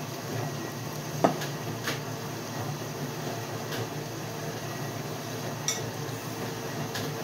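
A few light clinks and taps of a fork against a plate as the plate is handled, the sharpest about a second in, over a steady low hum.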